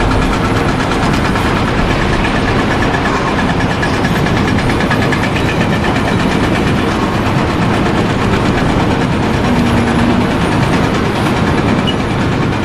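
A large engine running steadily at a constant speed, loud and unbroken, with a low hum throughout.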